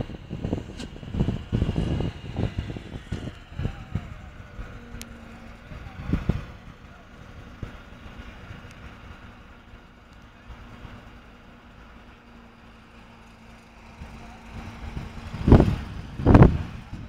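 Truck-mounted crane's engine running with a steady low hum, under irregular low rumbling in the first few seconds and two loud short bursts near the end.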